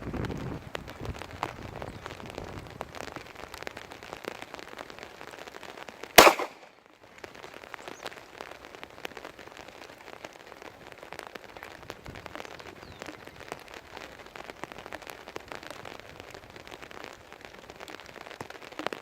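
Steady rain falling, with a single loud .45 ACP pistol shot from a Glock 21 about six seconds in.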